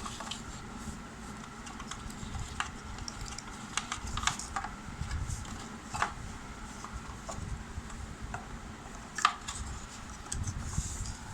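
Handling noise of a rubber drive belt being worked onto a grinder's large pulley by hand: scattered light clicks and knocks over a low rumble, with a sharper knock about nine seconds in.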